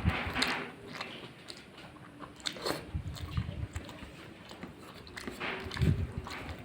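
A person chewing and biting a mouthful of rice and curry, with irregular wet mouth sounds and small clicks, loudest in a few bouts of chewing.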